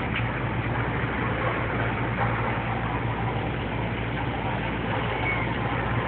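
A steady low machine hum under a constant rush of noise, like a motor or engine running without change.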